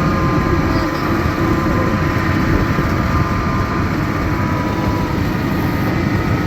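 Miniature park train running along its track: a steady rumble of the locomotive and carriages, with a faint thin whine riding above it.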